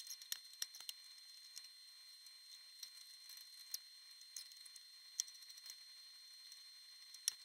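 Faint, scattered light clicks of small metal parts being handled at an aluminium spar, over a thin, steady, high-pitched hiss.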